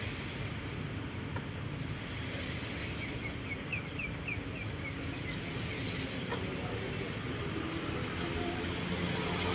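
Steady low outdoor rumble of background noise, with a quick run of about seven short high chirps around three to four seconds in.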